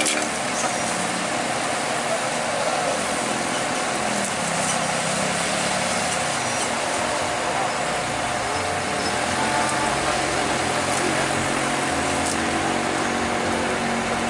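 Diesel engine of a Kobelco crawler excavator running steadily, its pitch dipping and rising a few seconds in.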